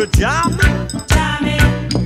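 Background music with a steady beat, about two beats a second, over sustained pitched notes.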